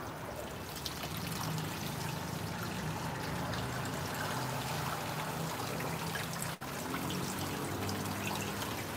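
Water running from a garden hose and trickling across a wet concrete floor, steady, cutting out for an instant about six and a half seconds in.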